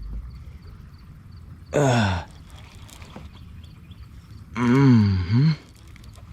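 A man's two wordless strained vocal groans while reeling in a hard-fighting fish: the first short and falling in pitch, the second longer, rising and falling, with a brief rising tail.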